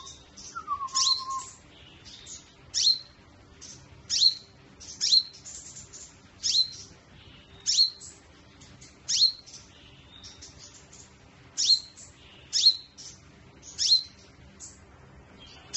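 Caged sunbird calling: a sharp, high chip about ten times, roughly once every second or so, each note sweeping steeply down, with fainter ticks between. A lower wavering note sounds near the start.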